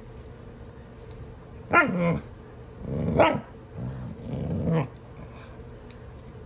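Two dogs play-fighting, one giving loud growls and growling barks in three bursts between about two and five seconds in, the first sliding down in pitch. It is rough play, not a real fight.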